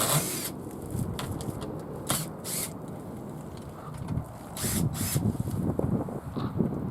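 Wind rumbling on the microphone, with a few short, sharp rustles and clicks scattered through it.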